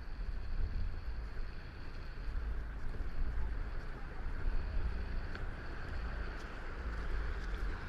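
Wind rumbling on the camera's microphone over a steady high hiss of outdoor background noise.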